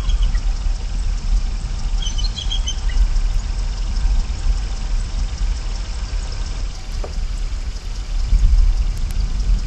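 Steady rushing outdoor noise with a heavy, fluctuating low rumble on the nest-camera microphone. A few faint high bird chirps come about two seconds in.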